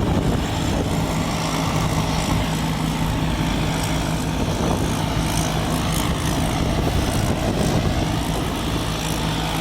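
An engine running steadily, a low hum holding one pitch throughout.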